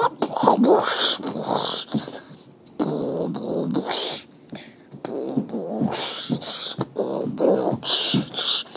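Beatboxing: an irregular run of mouth sounds, with short pitched hums and wavering voice-like tones broken by sharp hissing bursts about every two seconds.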